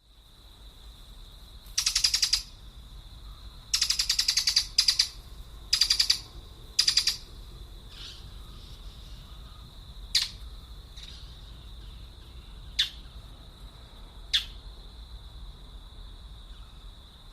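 Birds calling: a run of loud, harsh, rattling calls in the first half, then three short, sharp chirps spaced a couple of seconds apart. A steady high-pitched tone runs beneath.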